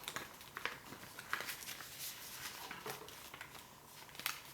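Paper being folded and creased by hand: faint, irregular rustles and crinkles with a few sharper clicks.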